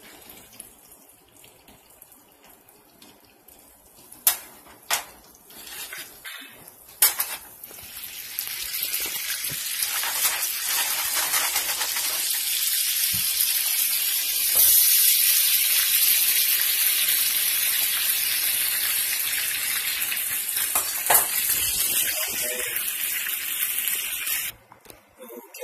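Catfish fillets frying in a hot buttered pan. A few sharp clicks come first, then a steady sizzle builds from about eight seconds in, stays loud, and cuts off suddenly near the end.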